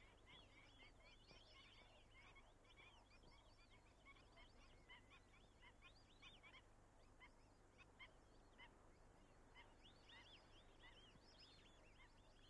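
Faint chorus of many wild birds chirping and calling, short overlapping notes throughout, over a faint steady low hum.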